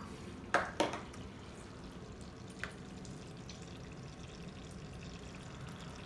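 Toy sink faucet running a thin stream of water over plastic dishes. Two sharp clacks of plastic come about half a second in, and a light click follows a couple of seconds later.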